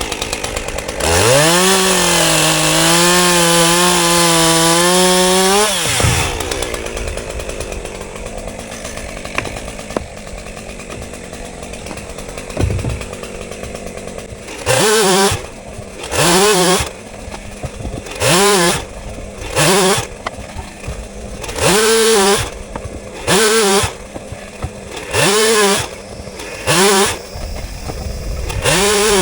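Chainsaw engine revved up about a second in and held at high speed for about five seconds, then dropping back to idle. Near the end it is blipped in short revs, about one every one and a half to two seconds.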